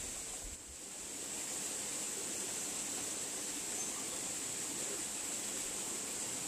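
Steady outdoor background noise: an even hiss with a constant high-pitched band on top.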